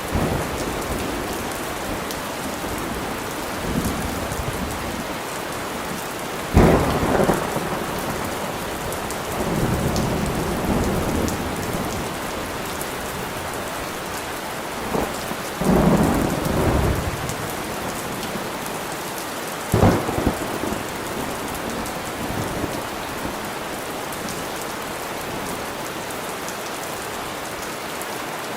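Steady rain falling in a thunderstorm, with a sharp thunderclap about a quarter of the way in, a rolling rumble soon after, and two more claps a little past the middle.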